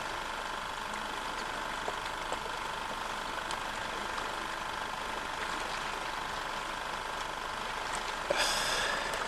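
A steady mechanical hum, like a motor running, with a few fixed high tones in it. A short rustling burst comes about a second before the end.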